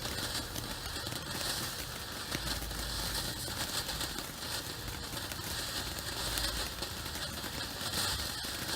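Ground fountain firework spraying sparks: a steady hiss with fine, dense crackling that swells and eases a little.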